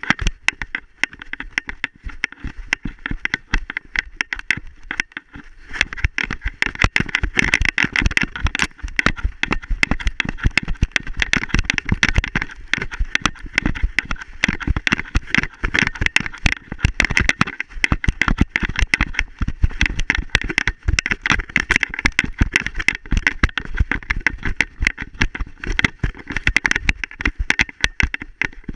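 A dog running through snow, heard from a camera strapped to its harness: a rapid, unbroken run of thumps and scuffs from its strides and the jostling mount, a little quieter for the first few seconds.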